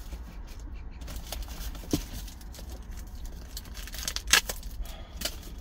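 Handling noise of a plastic lunchbox tray and disposable plastic gloves: soft rustles and scrapes with a few sharp clicks, the loudest about four seconds in, over a low steady hum.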